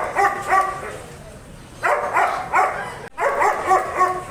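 A dog barking in quick bursts of three or four sharp barks, each bark falling in pitch, with a pause of about a second after the first burst.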